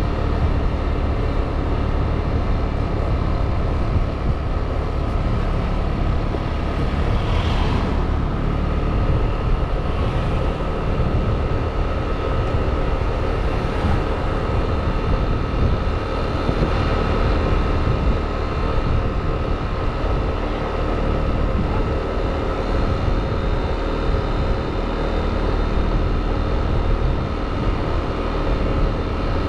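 Motor scooter riding along in traffic: a steady engine drone with a held whine, and wind rumbling on the microphone. A brief louder hiss comes about seven and a half seconds in.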